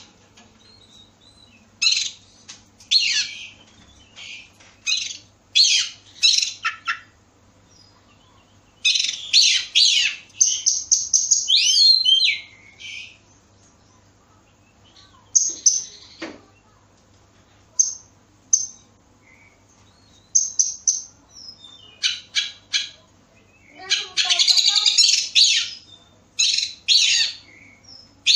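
Oriental magpie-robin (kacer) singing: short, high phrases of varied chirps and whistles broken by pauses of a second or two. There is a longer, continuous run of phrases about nine seconds in and a dense, busy phrase a few seconds before the end.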